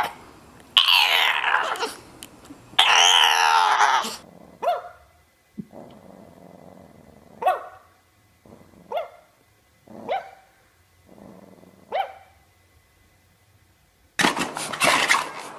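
Bulldog puppy barking: two long calls with wavering pitch, then five short, sharp barks that fall in pitch, spaced a second or two apart, with faint low growling between them. A loud, noisy sound starts abruptly near the end.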